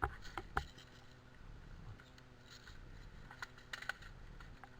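Faint clicks and scraping of gear being handled, typical of a magazine change on an airsoft rifle: a few sharp clicks near the start and a few more a little past the middle.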